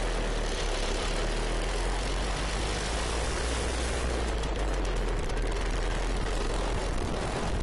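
Lambretta scooter on the move: its two-stroke single-cylinder engine running steadily under heavy wind rush on the camera microphone, which drowns out most of the engine's detail.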